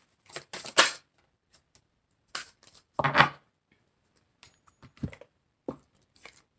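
A deck of oracle cards being shuffled by hand: a handful of short papery swishes and flicks of card stock, the loudest a little after three seconds in, as one card comes out onto the table.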